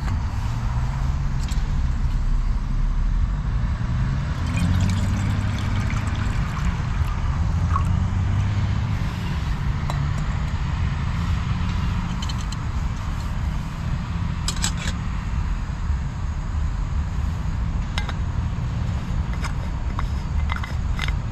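Road traffic: vehicle engines running and passing, one pulling away with a rising engine note about four seconds in, over a steady rumble.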